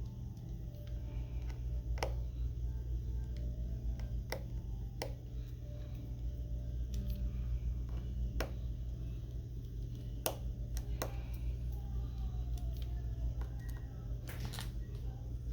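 Sharp small clicks and taps every few seconds over a steady low hum, typical of tools and parts being handled during a phone screen repair.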